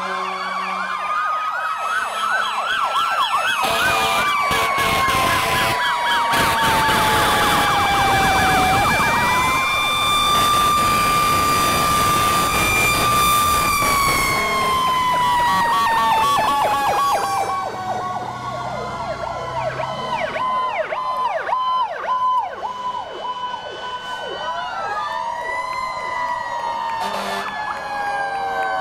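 Several fire truck and police car sirens sounding at once as the vehicles pass, overlapping slow wails and rapid yelps. A long, slowly falling wail runs through the second half.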